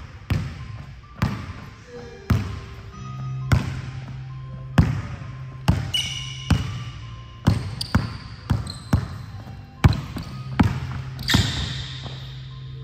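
A basketball being dribbled hard on a hardwood gym floor, with sharp bounces at uneven spacing of roughly one a second, and a brief sneaker squeak about six seconds in.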